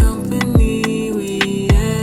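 R&B/hip-hop track: a deep kick drum falls in pitch on each hit, a little under twice a second, with sharp hi-hat-like ticks and a held synth tone over it.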